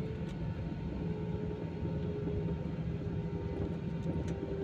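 Airliner's jet engines running at low power before takeoff, heard inside the cabin: a steady low rumble with a faint, even whine held over it.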